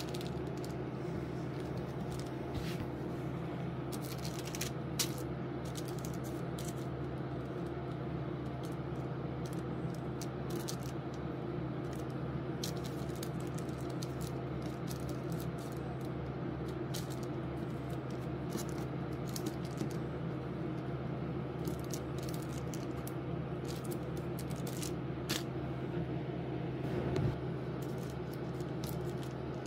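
Baking paper crinkling and scraping in light, scattered clicks as puff pastry strips are handled and twisted on it, over a steady low hum.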